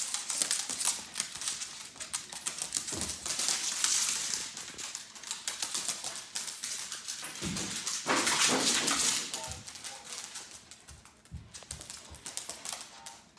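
Corgis' claws clicking and paws scrabbling on a hard plank floor as they run and chase, a fast irregular patter of clicks. It is loudest about four seconds in and again around eight to nine seconds in, then fades toward the end.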